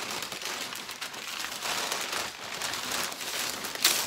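Crinkling and rustling of packaging being handled and rummaged through, with one sharper crackle near the end.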